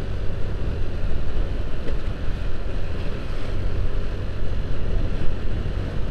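Motorcycle ride: steady engine and road noise with wind buffeting the microphone.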